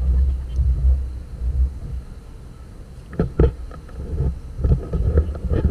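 Deep rumble of a passenger boat under way, heard from its open deck, with uneven gusts of wind buffeting the microphone from about three seconds in.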